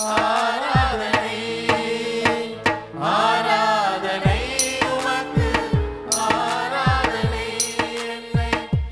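Worship song in Tamil: a singer's voice in phrases over steady held keyboard chords and a tabla-style drum rhythm whose low strokes drop sharply in pitch.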